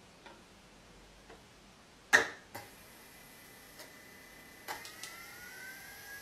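A PC CD-ROM drive's mechanism clicks several times, one click just after two seconds much louder than the rest. Then its spindle motor spins up with a whine that rises in pitch and levels off.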